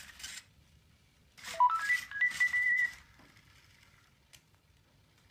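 Sony Aibo robot dog playing electronic tones: a quick run of notes stepping up in pitch, then several short high beeps at one pitch, with bursts of noise alongside.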